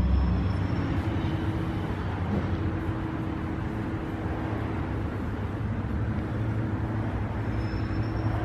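Steady machine drone from a stainless steel industrial shredder and bone breaker running, a low hum under an even noise with a faint held tone.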